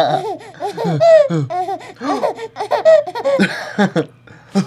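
Infant laughing in several bursts with short breaks between them.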